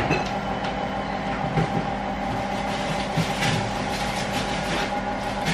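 Tumble dryer running with a steady, noisy mechanical rumble and hum.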